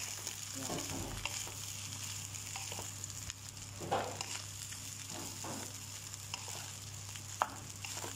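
Egg fried brown rice sizzling in a hot pan as a wooden spatula stirs and scrapes through it, with a steady hiss and scattered knocks of the spatula against the pan, the sharpest about 4 and 7.5 seconds in.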